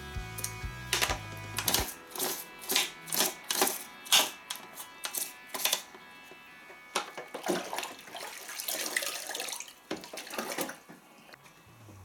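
A toothbrush scrubbing a plastic washing-machine detergent drawer over a sink in quick, rasping strokes. From about halfway in come splashing and swishing of water in a washing-up bowl.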